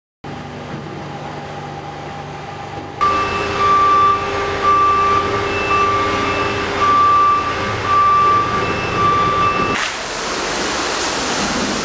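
Construction-site machinery running steadily. From about three seconds in until near the end, an electronic warning beeper sounds about once a second, like a reversing or hoist alarm. A louder, even hiss follows.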